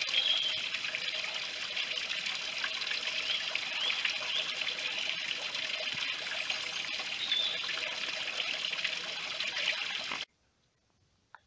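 Small waterfall trickling down a mossy rock face into a shallow pool: a steady splashing trickle that cuts off suddenly about ten seconds in.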